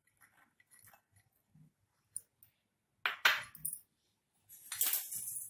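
Glass kitchenware clinking: faint ticks as pomegranate seeds drop into curd in a glass bowl, then a sharp clink about three seconds in and a shorter rattling clink near the end as small glass bowls are handled.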